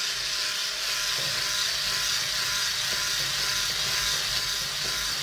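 Electric hand mixer running steadily at a constant speed, its beaters whisking egg yolks and sugar in a plastic bowl.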